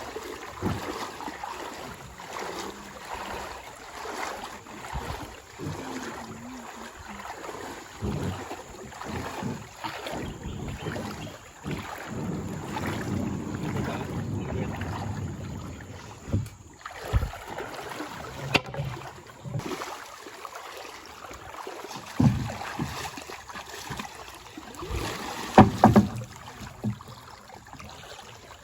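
Water sloshing and splashing around a small boat crossing floodwater, with a few short knocks, the loudest near the end.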